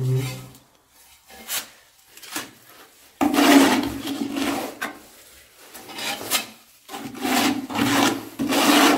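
Tile adhesive being scraped out of a plastic bucket and spread onto the back of a ceramic tile: rough scraping strokes in several bursts, starting about three seconds in, with the longest near the end.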